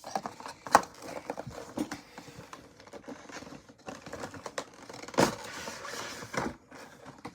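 Packaging being handled and opened: crinkling and rustling with scattered clicks and taps, a sharp click about a second in, and a louder stretch of rustling about five seconds in.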